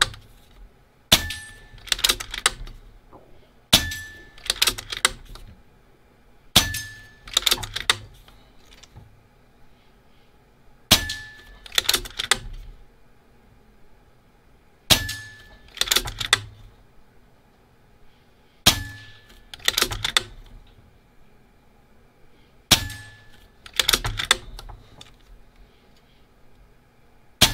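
Benjamin Kratos .22 PCP air rifle firing shots a few seconds apart, each followed under a second later by a cluster of clangs as a hanging steel paddle target is hit and swings.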